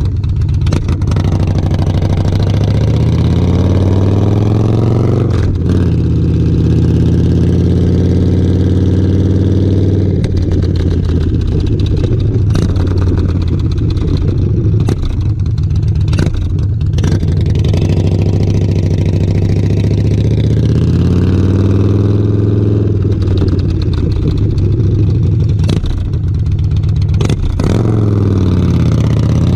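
Yamaha Road Star Warrior 1700's V-twin engine running through a Pacific Coast Star 2-into-1 Roadster exhaust with a Vortex race baffle, under way. The note climbs in pitch and falls back several times, with a steadier cruise in the middle.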